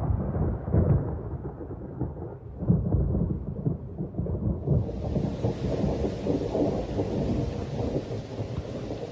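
Thunderstorm in a tropical rainforest: thunder rumbling in rolling swells, with rain coming in as a steady hiss about halfway through.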